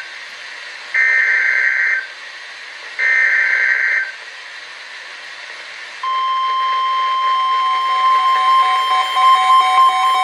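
Emergency Alert System signal on NOAA Weather Radio, opening a tornado warning. First come two one-second bursts of the SAME digital header's screechy two-tone data, a second apart. About two seconds later the steady 1050 Hz weather-radio warning tone begins, and a second, lower tone joins it and starts to pulse.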